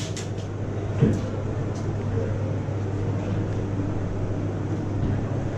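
Steady low mechanical hum over a constant noise haze, with a few faint sharp clicks and one louder knock in the first two seconds.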